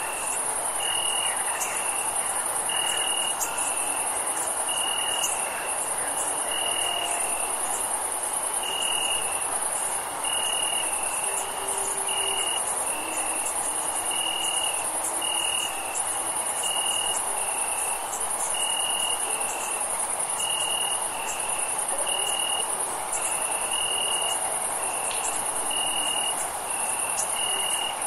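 Crickets chirping: a steady high-pitched trill, under a lower chirp that repeats about once a second, over a soft steady background hiss.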